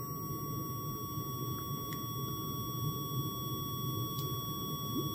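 Multimeter continuity beeper sounding one steady, unbroken tone with the probe tips held together. The unbroken tone shows clean, good contact with no crackle from oxide.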